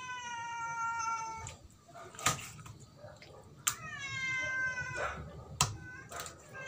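A cat meowing in two long, drawn-out calls, each slowly falling in pitch, with a few sharp knocks of a knife against a wooden chopping block between them.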